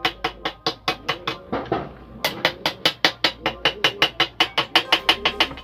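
Chipping hammer rapidly tapping a welded steel-tube chair frame, about six sharp metallic blows a second, knocking slag off the fresh welds. There is a short break with a scraping sound about one and a half seconds in, then the tapping resumes.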